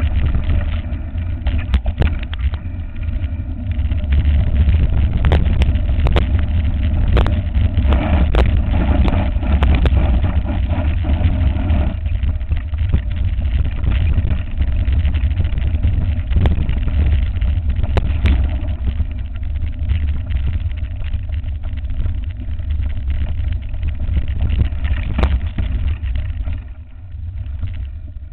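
Wind rumble on a handlebar-mounted camera's microphone as a mountain bike rolls over a rough dirt track, with frequent rattles and knocks from the bike jolting over bumps. The rumble eases briefly near the end.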